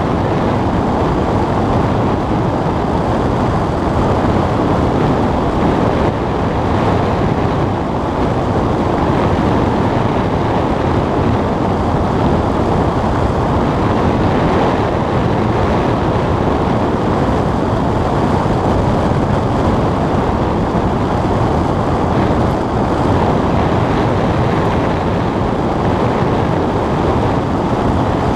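Steady rush of airflow over the cockpit of a small aircraft in flight, an even noise with no distinct engine note.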